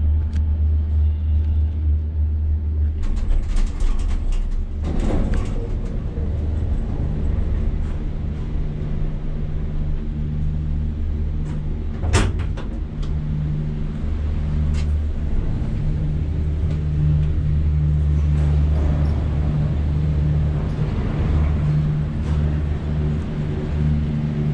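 Aerial gondola cabin of a cable car running into its station, heard from inside: a steady low rumble and hum of the moving cabin and station machinery, with knocks a few seconds in and a sharp click about halfway.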